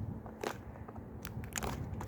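Slime being squished and pulled by hand, giving a few scattered crackling clicks.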